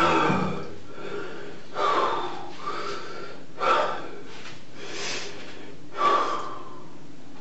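A man weeping with his face in his hands: a run of heavy, gasping sobbing breaths, one every second or two, over a steady recording hiss.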